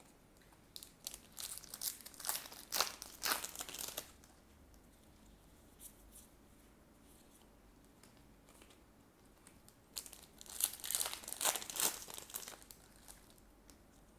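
Crinkly plastic wrapper of a trading-card booster pack being handled and torn open, in two crackling bursts: one about a second in lasting some three seconds, and another about ten seconds in.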